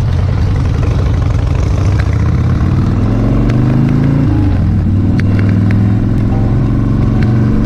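Harley-Davidson Dyna Street Bob's V-twin engine running under way. Its pitch rises as the bike accelerates, drops suddenly about four seconds in at a gear change, then holds steady.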